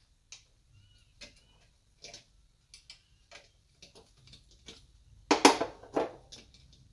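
A wrench clicking and tapping irregularly against an ignition coil's terminal nut and bracket as the nut is backed off, with two louder metal clanks near the end.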